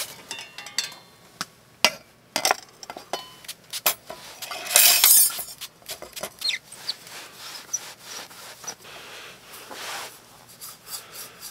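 Clinks, taps and knocks of camp cookware and gear being handled, with a louder noise lasting about a second around five seconds in.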